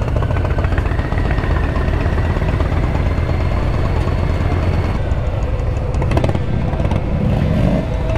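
Harley-Davidson V-twin motorcycles ridden slowly in a group, their engines giving a steady deep low rumble, heard from a camera on one of the bikes. The sound changes character about five seconds in.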